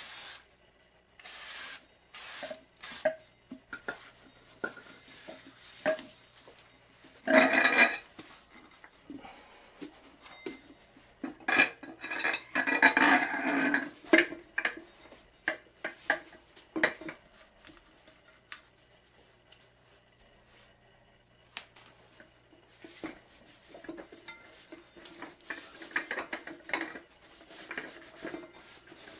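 Rubber mower tire being worked over a metal wheel rim on a mini tire changer, with repeated knocks, clanks and scraping of rubber and metal against metal. The longest, loudest scraping comes about 7 s in and again from about 11 to 14 s in, with lighter rubbing and rustling near the end.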